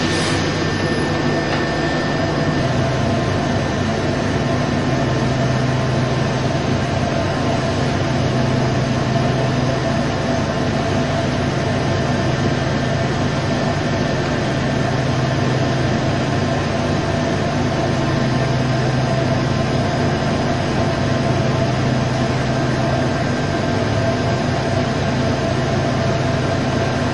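Okuma MU-500 five-axis CNC machining center running: a steady low mechanical hum with a few faint steady whining tones above it.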